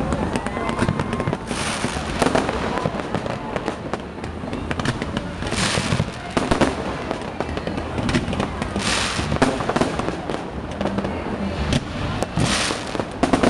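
Fireworks display: a dense run of bangs and crackles from bursting shells, with four louder bursts of hissing crackle a few seconds apart.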